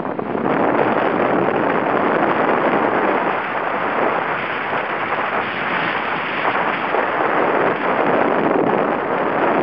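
Gale-force wind, forecast Force 8-9, buffeting the microphone: a loud, steady rushing that strengthens about half a second in.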